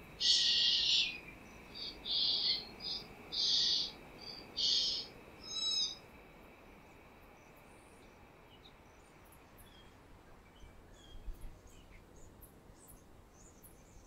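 Pied currawong nestling begging from the nest: about six harsh, rasping calls, each about half a second long, in the first six seconds, then only faint scattered chirps.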